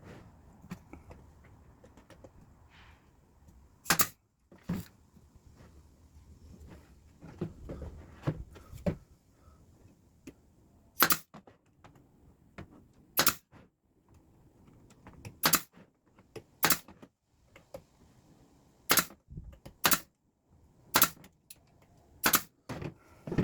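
Brad nailer firing about ten sharp shots at irregular one- to two-second intervals, driving brad nails into wood, with quieter handling knocks in between.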